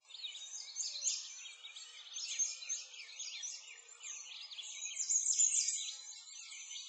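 Dense chorus of songbirds, many short overlapping chirps and trills with no break, growing louder about five seconds in.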